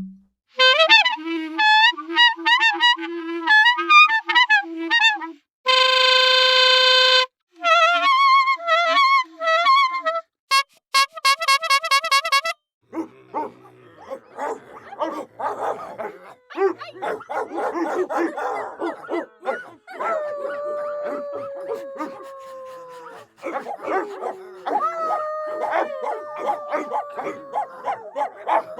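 A run of cartoon sound effects, one after another. First come bouncing pitched boings and glides, a steady buzzing horn-like tone, and short warbles and rapid ticks. About halfway through, a longer, busier effect of clatter begins, with two long falling tones in it.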